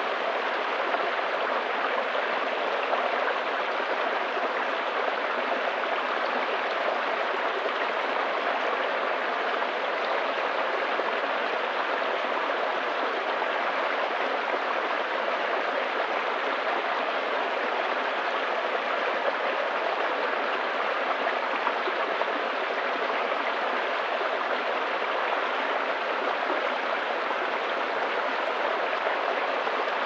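A small rocky brook running and splashing down a little cascade of stones: a steady, even rush of water.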